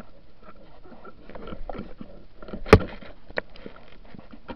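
Underwater crackling and irregular clicking heard through a submerged camera, with one sharp knock a little under three seconds in and a smaller click soon after.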